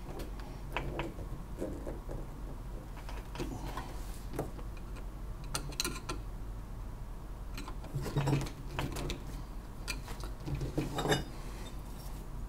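Hand tools working a metal probe bracket: a screwdriver tightening the bracket screw, with scattered metallic clicks and clinks of tools on the fitting and bench.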